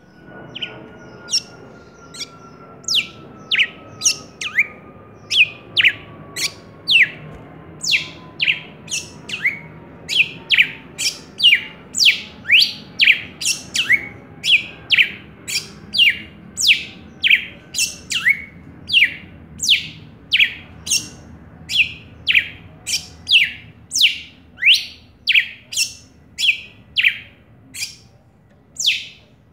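Male red-cowled cardinal singing: an unbroken string of sharp, high notes, each sweeping steeply downward, about two a second.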